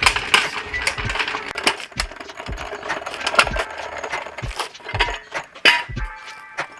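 Metal clinking and clattering as a car jack and jack stands are gathered up, many quick knocks and rattles, over background music with a steady beat.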